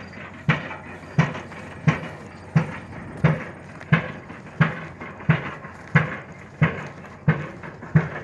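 Pile driver's hammer striking a pile in a steady rhythm of about three blows every two seconds. Each blow is a sharp bang with a short ringing tail.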